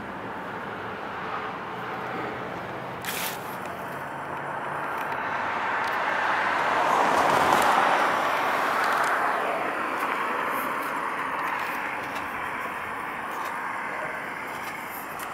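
A car driving past on the road: tyre and engine noise that swells to its loudest about halfway through and then fades away.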